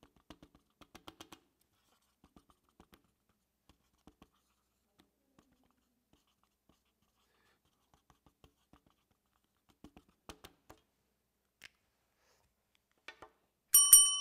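Faint scratching of a pen writing on paper in short, scattered strokes. Near the end a bell rings loudly with a few steady ringing tones: the signal that the time to write the answer is up.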